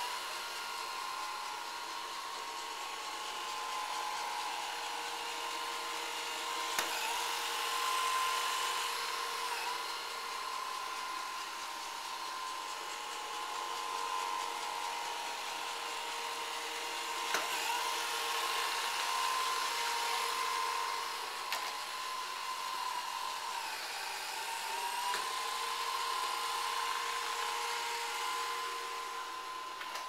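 Old-model iRobot Roomba robot vacuum running on carpet: a steady motor whine whose pitch sags for a moment several times, with a few sharp clicks.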